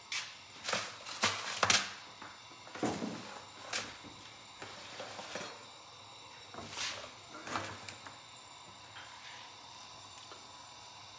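Kitchen clatter of an oil bottle and pans being handled on a gas hob: a handful of separate knocks and clinks in the first few seconds and two more later, over a faint steady hiss.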